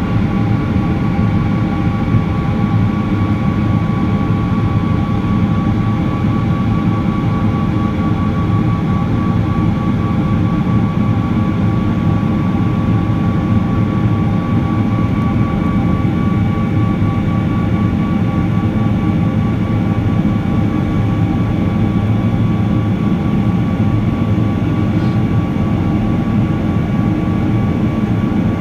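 A Rolls-Royce Trent 800 high-bypass turbofan on a Boeing 777-300 running at climb power after take-off, heard inside the cabin. It makes a steady low rumble, with several steady whining fan tones held level above it.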